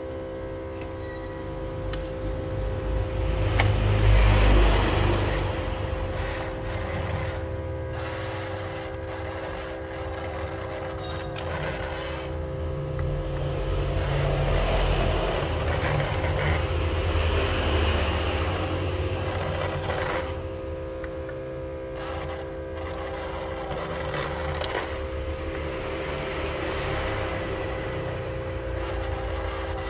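Steady electrical hum from an LCD separator machine, with scraping and rubbing noises that swell several times as broken glass and polarizer residue are cleared off a phone screen.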